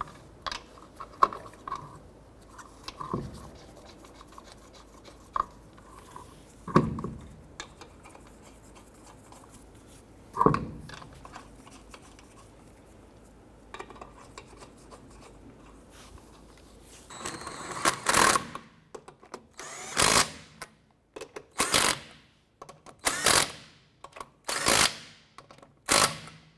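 Lug nuts being threaded onto the wheel studs by hand, with light clicks and a few clunks. From about 17 s in, a power tool runs down the lug nuts one at a time in about six short bursts, roughly a second and a half apart, snugging them before torquing.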